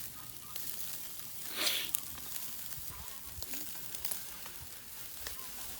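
Wood fire crackling in a Snow Peak Takibi-dai SR fire pit, with scattered sharp pops over a low hiss and one brief louder hiss about a second and a half in.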